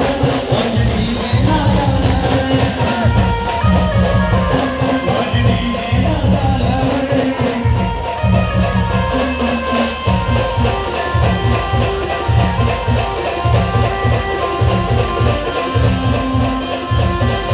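Procession band playing loud music: a steady, heavy bass beat with a melody over it.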